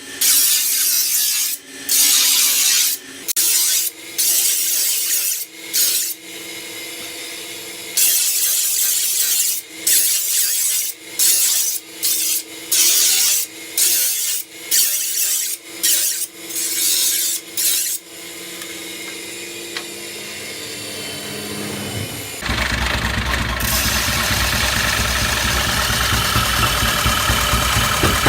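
A steel sickle blade being sharpened: repeated rasping strokes, about one a second, over a faint steady hum. About 22 seconds in, a loud, steady mechanical running noise with a fast rhythm starts and takes over.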